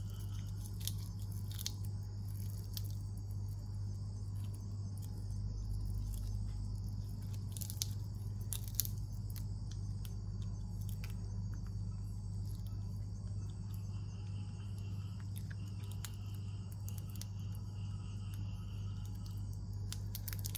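Baby macaque biting and chewing a cicada, giving scattered sharp crunches and clicks, a few louder than the rest. They sit over a steady low hum, and a faint high insect buzz comes and goes, most clearly in the last third.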